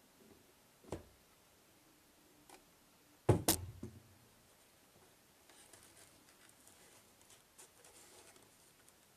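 Cardboard model-locomotive box handled and opened: a light knock about a second in, a louder clatter of knocks about three and a half seconds in, then faint scratchy rubbing of fingertips over the black foam insert.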